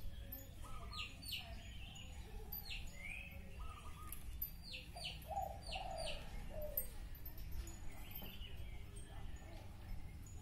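Small birds chirping, in quick pairs and threes of short falling chirps, with some lower bird calls about halfway through and a steady low hum underneath.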